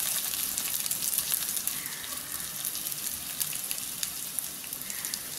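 Fennel and cumin seeds sizzling in a spoonful of hot oil in a frying pan: a dense, fine crackle that slowly gets softer.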